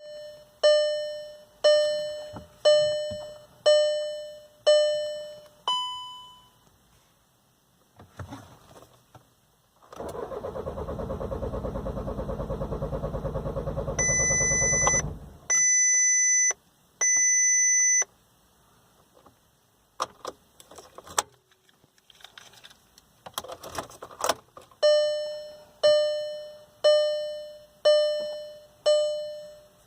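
2011 VW Golf TDI's 2.0-litre CJAA diesel cranking on the starter for about five seconds without firing: a no-start. A dashboard warning chime repeats about once a second before and after, and three long high beeps sound as the cranking stops.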